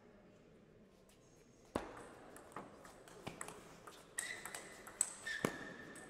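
Table tennis rally: sharp clicks of the plastic ball off bats and table, starting a couple of seconds in, about six hits over four seconds. A high, steady squeak joins in the second half.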